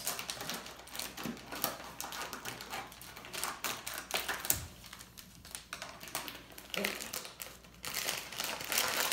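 Scissors snipping through a plastic bag: a quick run of small clicks with the plastic crinkling, and the bag rustling as it is handled near the end.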